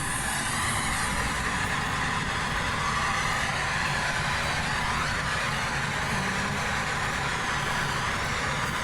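Boeing 737 landing: steady noise of jet engines and rushing air, with faint wavering high tones above a low rumble.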